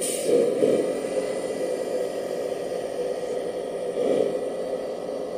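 1/14-scale RC Iveco 8x8 dump truck driving loaded over dirt, with a steady whir from its drive train.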